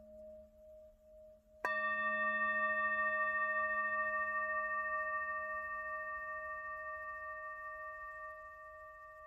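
Tibetan singing bowl humming softly with a slow waver in loudness, then struck with its mallet about a second and a half in. It rings with several clear overtones above its main tone, slowly fading.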